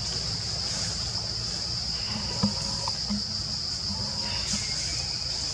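Forest ambience: a steady high-pitched insect drone over a low rumble, with a single sharp click about two and a half seconds in.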